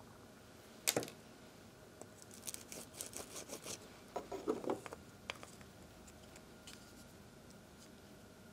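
Flush cutters snipping a printed-in support disc out of a 3D-printed plastic bracket. There is a sharp snip about a second in, then a run of small clicks and snaps as the plastic is cut free, and a duller knock a little after four seconds.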